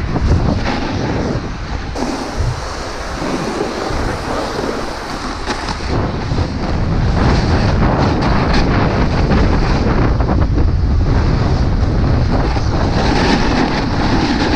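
A snowboard sliding and scraping over snow, mixed with wind buffeting the microphone; a steady hiss that gets louder about halfway through as the board picks up speed.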